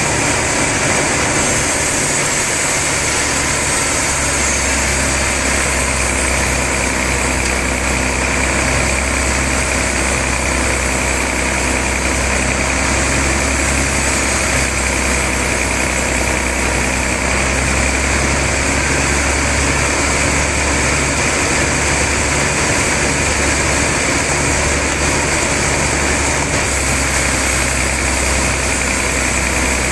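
Sawmill saw machinery running steadily with a deep, even hum.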